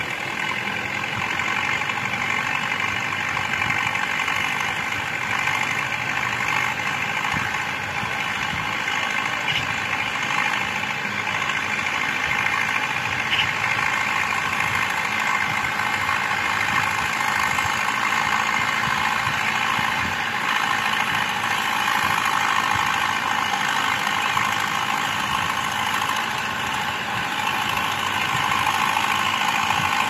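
Universal 640 DTC tractor's four-cylinder diesel engine running steadily under load while pulling a plough, growing slightly louder near the end as it comes closer.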